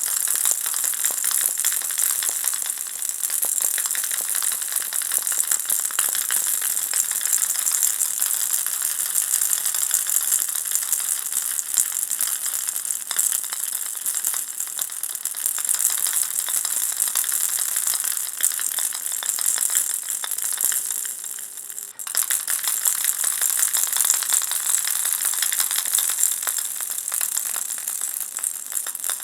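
Ball-shaped baby rattle shaken continuously, its beads making a dense, even rattle. The rattle fades briefly about 21 seconds in, then comes back at once.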